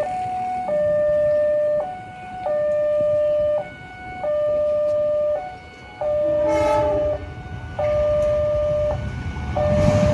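Railway level-crossing warning alarm sounding a repeating two-tone electronic signal: a long low tone alternating with a short higher one, about one cycle every 1.7 seconds. A short horn blast comes about six and a half seconds in, and near the end the rumble of an approaching train rises under the alarm.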